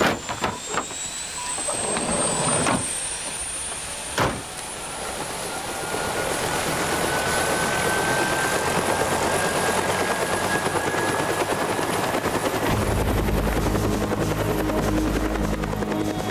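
Bell UH-1D helicopter running, with a slowly rising turbine whine over the rotor noise, the whole sound growing louder from about a third of the way in. A few sharp knocks come in the first seconds. Music with a steady bass comes in over it near the end.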